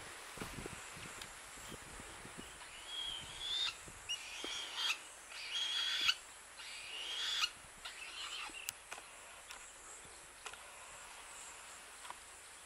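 A bird giving a series of high-pitched calls, each a short rising or wavering note, from about three seconds in until past the middle, then stopping.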